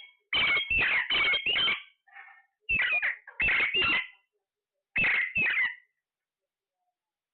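Parrot calling with harsh, rasping squawks: four in quick succession, then three more after a short pause, then two.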